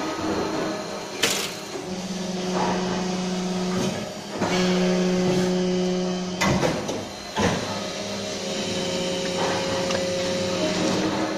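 Plastic injection molding machine running through its cycle: a low steady hum that comes on and drops away in stretches of a few seconds, with a sharp clack about a second in and two more around six and seven and a half seconds in.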